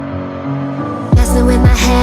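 Background music: held chords for about a second, then a heavy electronic beat with deep bass and kick drums comes in suddenly.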